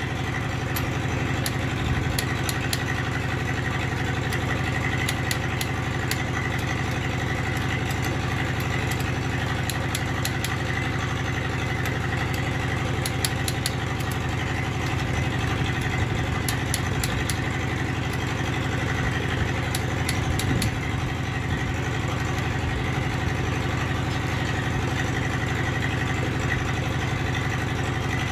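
An engine running steadily at idle, a constant drone throughout. Over it come small clusters of light metallic clicks every few seconds as a ratchet wrench works on the valve adjusters.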